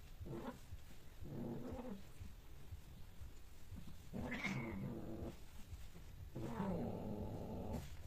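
A cat in heat caterwauling: four drawn-out yowls, the last two longer than the first two.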